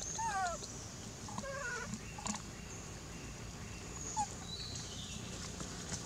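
Macaques giving a few short, high, wavering calls, each arching or dipping in pitch: a couple at the start, a string around a second and a half in, and a brief one near four seconds, over a steady high hiss.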